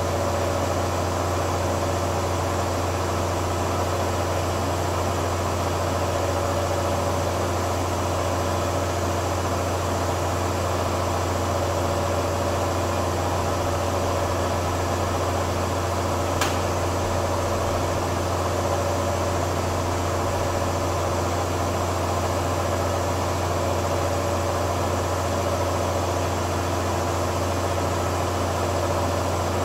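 Tornos Swiss-type sliding-headstock cam lathe running steadily, a constant mechanical hum with a few steady tones, and a single sharp click about halfway through.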